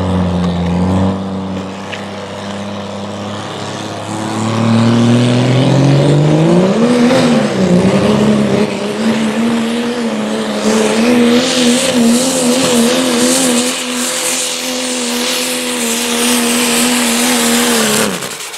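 Turbo-diesel Dodge Ram pulling truck's engine under full load dragging a sled: it climbs in revs over a few seconds, then holds hard at high revs with a slightly wavering pitch, and cuts off suddenly near the end.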